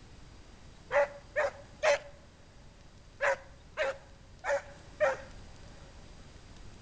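A scent hound barking: seven short, sharp barks, three close together and then, after a pause, four more, each about half a second apart.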